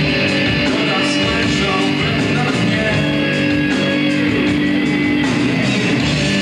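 Rock band playing live: electric guitars, bass and drums, with steady cymbal hits.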